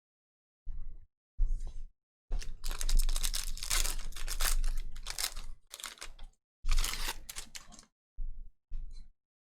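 Trading-card pack wrappers being torn open and crinkled, in several bursts of tearing and rustling. The longest burst lasts about four seconds, and the sound cuts out completely between bursts.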